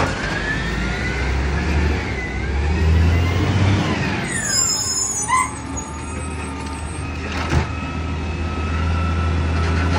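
Side-loading garbage truck's diesel engine running as it pulls away up the street, with a whine that rises and falls in pitch. A short high squeal comes about halfway through.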